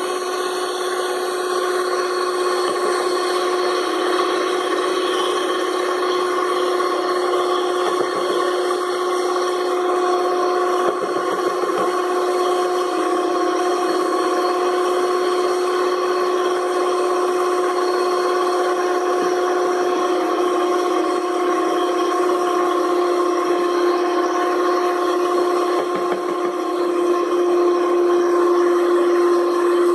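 Electric stand mixer running steadily, its motor giving a constant whine as the twin beaters work flour into cookie dough. It gets a little louder near the end.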